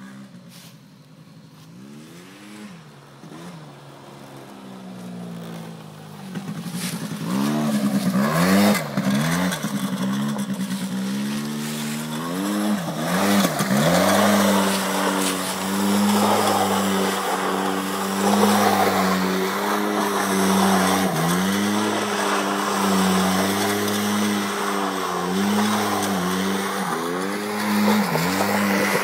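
Quad ATV engine revving up and down over and over as it spins donuts, fainter for the first six seconds or so, then loud with sharp rev swings and long stretches held at high revs. From about halfway, a hiss of tyres scrubbing on the asphalt sits under the engine.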